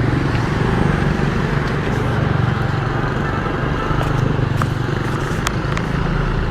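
Petrol engine of a walk-behind concrete saw running steadily, with scattered sharp ticks.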